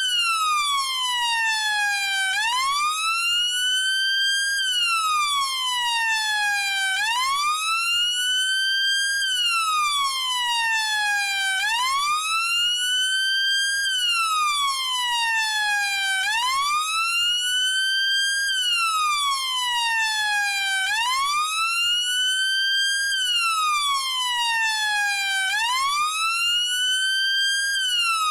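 UK police siren sounding a slow wail: a smooth, continuous rise and fall in pitch, each full cycle taking about four and a half seconds, repeating steadily at an even level.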